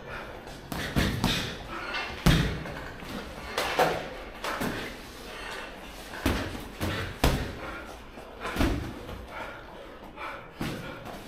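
Boxing gloves landing during sparring: irregular padded thumps and slaps of punches on gloves and headgear, often in quick pairs or bunches, the loudest about two seconds in.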